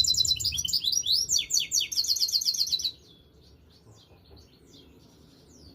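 Goldfinch mule (European goldfinch × canary hybrid) singing a fast, trilling song of rapidly repeated high notes. The song stops abruptly about three seconds in, leaving only faint scattered chirps.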